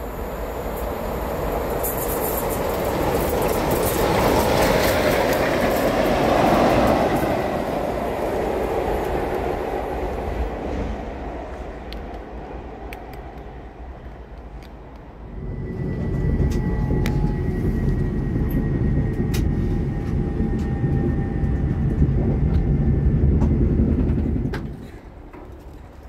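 A steam locomotive and its train pass along the platform, the sound building and then fading away over about ten seconds. Then a second train passes with a loud, steady low rumble and a faint high whine, which cuts off suddenly near the end.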